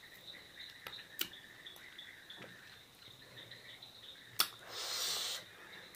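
Crickets chirping steadily in the background, with a few faint clicks. About four and a half seconds in comes a sharp click, then a short hissing rustle lasting under a second.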